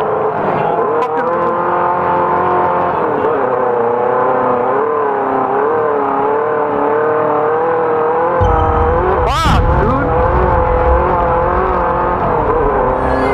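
Off-road race car engine running hard at high revs, heard from on board, its pitch wavering up and down. A deeper rumble joins about eight seconds in, and a quick whoosh sweeps up and back down about nine and a half seconds in.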